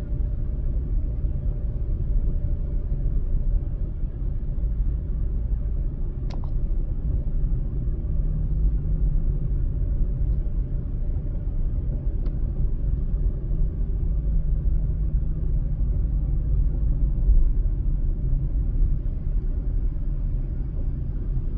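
A car driving: a steady low rumble of road and engine noise, with two faint clicks, about six and twelve seconds in.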